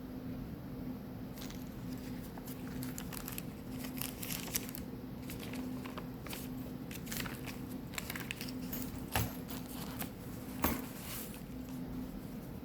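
Paper pages of a handmade junk journal rustling and crinkling as they are turned and loose paper pieces are handled, in irregular short rustles. There are two sharper soft knocks in the second half, over a faint steady hum.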